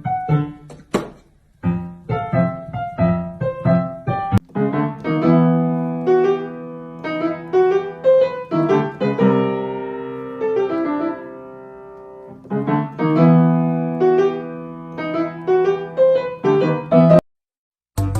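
Piano music: struck notes and chords that ring and fade. It cuts off abruptly about a second before the end.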